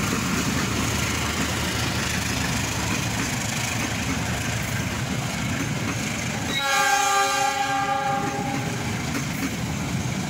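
A passenger train of stainless-steel coaches hauled by a CC206 diesel-electric locomotive passes close by, with a steady rumble of wheels on rail. About six and a half seconds in, a train horn sounds for about two seconds.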